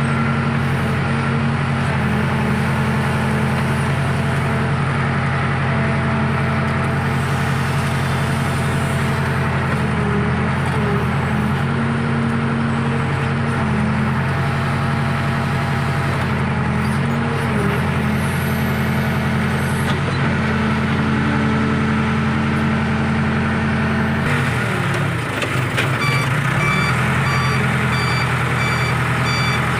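Backhoe loader's diesel engine running steadily under work, its pitch dipping briefly and recovering about 25 seconds in. Shortly after, the machine's reversing alarm starts beeping at an even pace.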